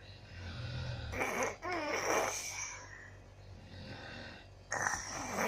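Elderly woman snoring in her sleep: a low rumbling breath, then loud rasping snores about a second in and again near the end.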